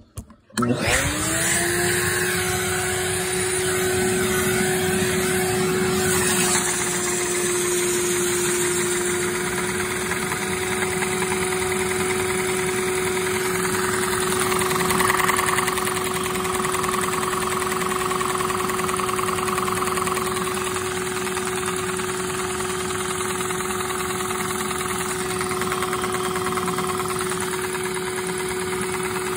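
Shop vacuum switched on about half a second in. Its motor whine rises quickly to a steady pitch and then runs steadily and loudly.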